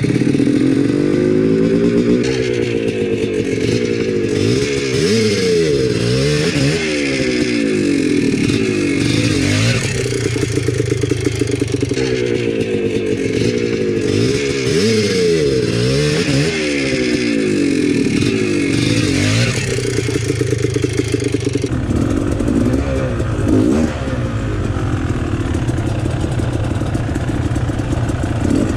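Dirt bike engine revved up and down over and over, its rear wheel spinning in loose dirt as the bike struggles to climb out of a steep, rooty hole. About three quarters of the way through, this gives way abruptly to another dirt bike's engine running close to the microphone at a steadier pitch.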